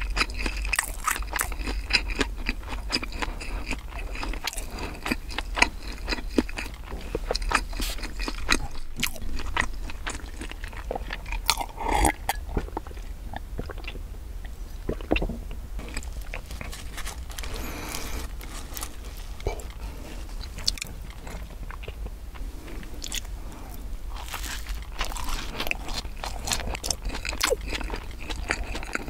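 Close-miked chewing of bread with wet mouth clicks, swallowing gulps of milk from a glass about halfway, then crunchy bites and chewing of a crumb-coated fried bread.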